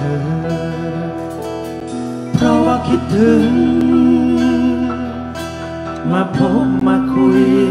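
A man singing a slow song into a microphone, with an acoustic guitar accompanying him. He holds long notes, and new sung lines come in about two and a half seconds in and again about six seconds in.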